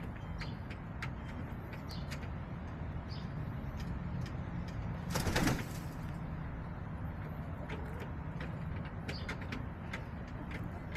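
Backyard hens pottering in their coop: faint low clucking and scattered light taps, with a short rustling burst about five seconds in.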